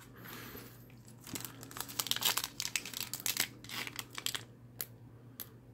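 Foil wrapper of a Pokémon trading card booster pack crinkling and crackling in the hands as it is handled and opened, in irregular short crackles with a brief lull near the end.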